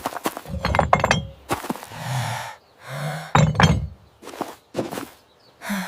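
A busy run of clinks, knocks and thuds, many short sharp hits one after another.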